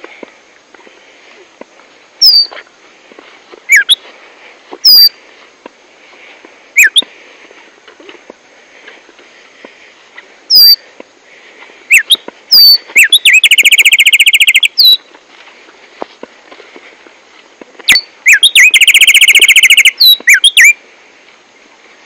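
Tumba yegua (black-striped sparrow) singing loudly: single sharp, falling whistled notes spaced a second or more apart, which twice speed up into a rapid trill lasting about two seconds.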